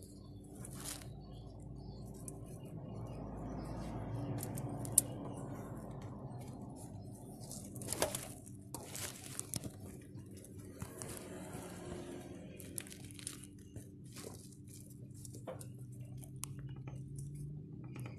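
Metal clinks and scrapes of tools working the oil filter loose on a Suzuki T120SS engine, with a few sharp knocks, the loudest about five and eight seconds in, over a steady low rush.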